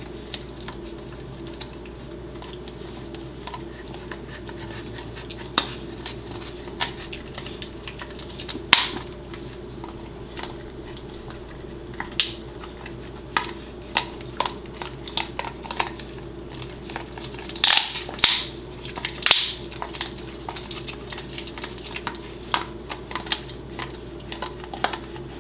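Pembroke Welsh Corgi chewing a dried buffalo trachea: irregular crunches and clicks of teeth on the hard, ridged cartilage, with the loudest bites bunched together about three-quarters of the way through, over a steady low hum.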